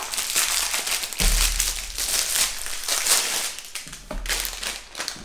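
Thin plastic wrapper being pulled off a roll of ready-rolled puff pastry and scrunched up by hand, crinkling irregularly, with a couple of low bumps.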